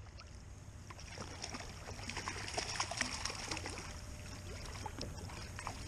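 Water lapping and trickling against a kayak, with scattered small clicks and splashes that slowly grow louder.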